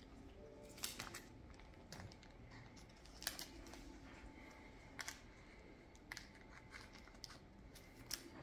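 Panini trading cards being handled and slid into the plastic pocket sleeves of a card binder: faint crinkling and rustling of the plastic, with a scattering of small sharp clicks and ticks.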